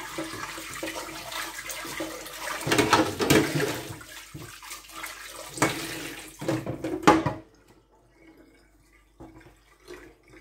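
Tap water running into a stainless steel kitchen sink, with a few clanks of a metal bowl against the sink; the water stops about seven and a half seconds in.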